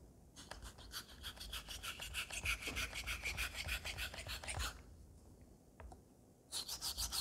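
Straight razor blade scraped in rapid back-and-forth strokes across a wet Atoma 600 diamond plate, several strokes a second, as a new bevel is cut on the blade. The strokes pause for about two seconds a little before five seconds in, then start again.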